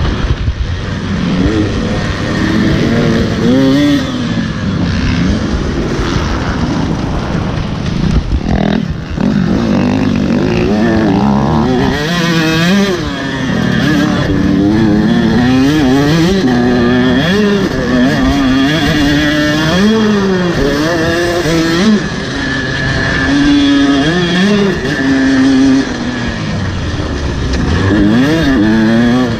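Motocross dirt bike engine running hard, revving up and dropping back again and again as the throttle opens and closes, its pitch rising and falling every second or two.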